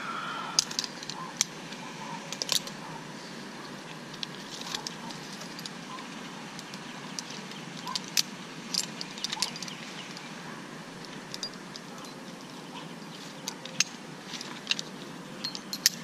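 Climbing hardware on a rope rig clinking, with scattered sharp clicks and scrapes against the palm trunk as the climber moves, over a steady outdoor hiss. The clicks cluster at the start, around the middle and near the end.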